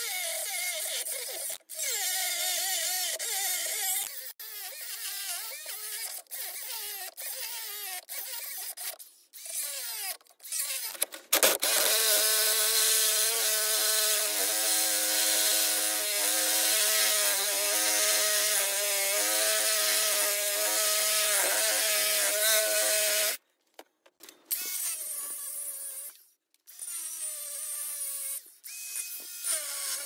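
DeWalt angle grinder cutting and grinding a rough aluminium casting. The motor whine wavers and dips in pitch as the disc bites in the first part, then holds steady for a long stretch under the hiss of the disc on metal. It stops briefly a few times, most clearly about two-thirds through.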